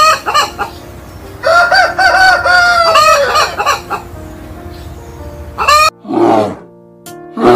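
A rooster crowing one long cock-a-doodle-doo, with shorter clucking calls before and after, over steady background music. Near the end two rough, falling roar-like calls begin.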